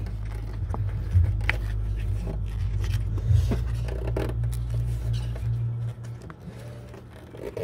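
Rubber headlight dust cover being twisted and stretched by hand over the back of an LED headlight bulb: rubbing and scraping with small clicks, over a low steady hum that drops away about six seconds in.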